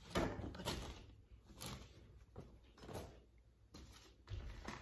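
Rummaging in a black plastic storage tote: about five light knocks and scuffs of items and the tub's plastic, the first the loudest.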